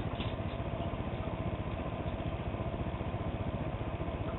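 Blower fan of a homemade solar air furnace running steadily, pushing warm air out of the vent: a constant hum with a fast flutter and a steady mid-pitched tone.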